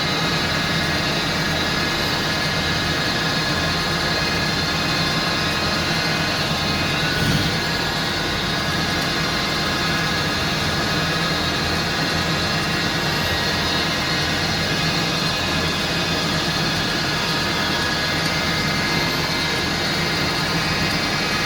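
A machine running steadily, a continuous mechanical drone with a high whine of many steady tones, and a single knock about seven seconds in.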